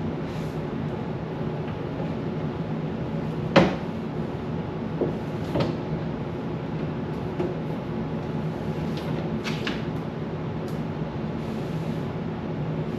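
A few hard knocks and clunks as items and fridge parts are handled and set down during fridge cleaning, the loudest one about a third of the way in, over a steady background hum.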